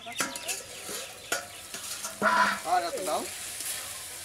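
Vegetables sizzling in a metal karai (wok) as a metal spatula stirs them, knocking and scraping against the pan several times, loudest about two seconds in.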